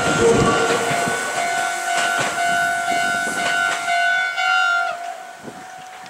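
A train's rumble dying away in the first second as it clears a level crossing, under the crossing's electronic warning bell ringing steadily; the bell stops abruptly about five seconds in, the signal that the crossing is clearing.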